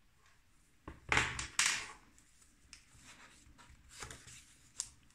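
Paper pages of a handmade art journal being handled and turned: two loud rustling sweeps about a second in, followed by a few lighter rustles and soft taps.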